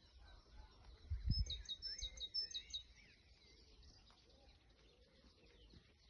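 Birds singing in the dawn chorus. A quick run of about eight short, high notes comes between one and three seconds in, with softer chirps scattered around it and a brief low rumble at the start of the run.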